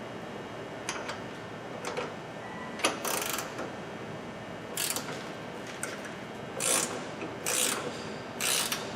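Hand ratchet clicking in short bursts, roughly one stroke a second and not quite evenly spaced, as a lower control arm mounting bolt is run in.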